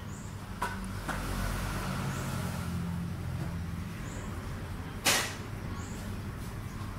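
Steady low mechanical rumble, with two light clicks about a second in and one sharp knock about five seconds in.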